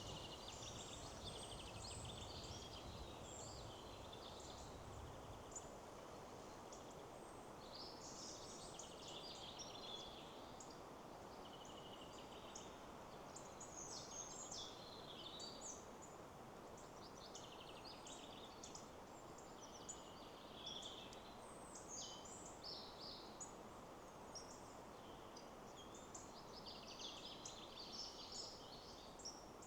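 Faint songbirds singing in clusters of short chirps and trills every few seconds over a steady rush of wind in the trees. A low rumble sits under it during the first few seconds.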